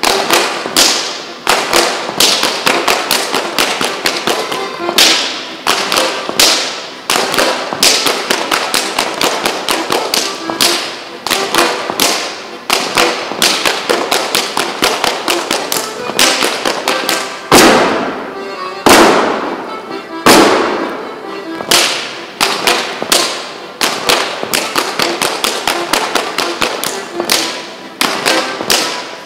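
Schuhplattler dancers slapping their thighs and shoe soles, clapping and stomping in a fast rhythm, several sharp slaps a second, with a few louder ones past the middle, over live band music.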